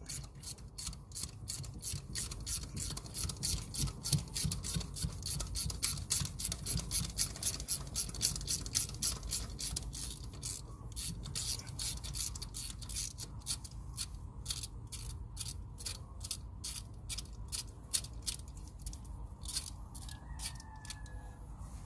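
Metal thread tap being turned back out of an exhaust manifold bolt hole in a Cummins 12-valve cylinder head to clean the threads: a steady run of light metal clicks, about three to four a second, with a faint scraping.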